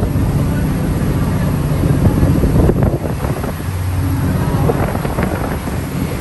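Sightseeing ferry's engine running with a steady low hum, with wind buffeting the microphone and water rushing past the hull.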